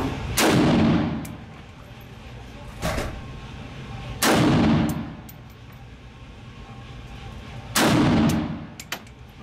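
Century Arms Micro Draco VSKA, an AK-pattern pistol in 7.62x39, firing three slow single shots about three and a half seconds apart. Each is a loud report with a long echo off the concrete walls of an indoor range. A quieter bang comes about three seconds in, and there are a few faint high clicks.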